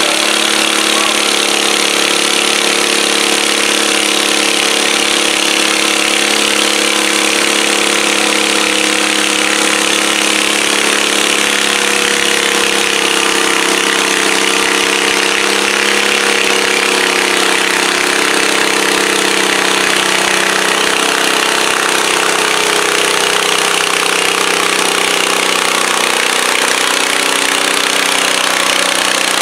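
Modified garden tractor's engine running steadily at an even pitch while it slowly drags a weight-transfer sled.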